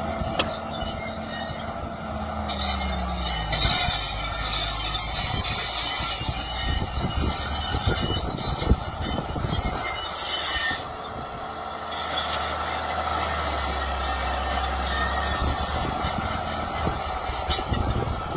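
Excavator at work: its diesel engine running, dropping in pitch about two to three seconds in, under high metallic squealing and scattered knocks.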